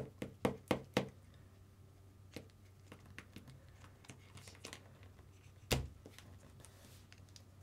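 Small clicks and taps of a hex driver starting a screw into the plastic steering parts of an RC car kit: a quick run of about four sharp clicks in the first second, then faint scattered ticks and one louder knock a little before six seconds in.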